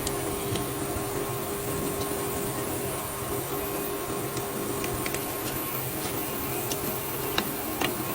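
Steady mechanical hum of workshop machinery with a faint noisy background, and a few light clicks, two of them sharper near the end.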